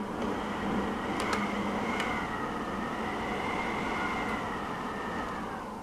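Emergency vehicle siren wailing, its pitch slowly rising and falling, over a steady hiss of rain, with a few faint sharp clicks.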